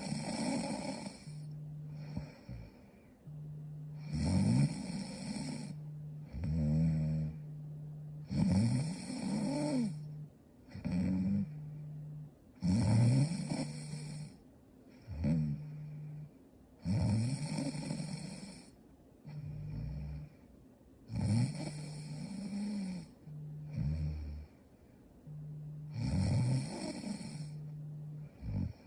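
A sleeping woman snoring in a slow, regular rhythm: a loud snore roughly every four seconds, with a quieter, steady-pitched sound between each one.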